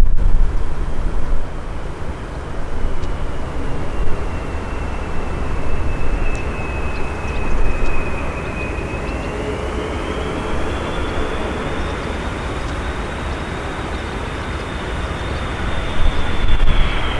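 Boeing 747-400F freighter's four jet engines on its landing approach: a steady rumble with a high engine whine that rises about halfway through, holds, then drops slightly near the end.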